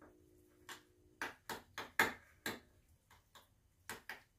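Utensil clicking and tapping irregularly against a small ceramic bowl while mashing and stirring avocado with seasonings.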